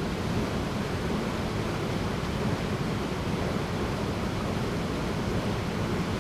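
Small waterfall pouring into a rock pool: a steady rushing of water.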